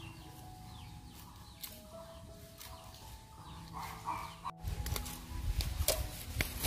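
Chickens clucking in the background, then, about four and a half seconds in, closer and louder sounds of a knife cutting pangas fish into pieces on a banana leaf, with several sharp clicks.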